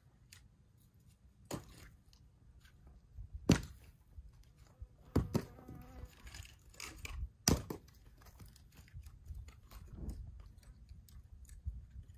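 Split firewood pieces tossed onto dry ground by the woodpile, landing with sharp wooden knocks. Four louder knocks come about two seconds apart, one ringing briefly, and fainter knocks follow near the end.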